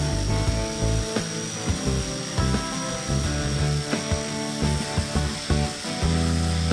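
Background music with a steady beat over a power sander running with a steady high whine, sanding wood.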